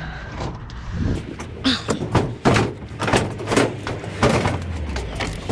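Sheet-metal appliances being shoved and turned around in a pickup truck bed: a run of hollow metal clunks and bangs, several to a second at times, over a low steady hum.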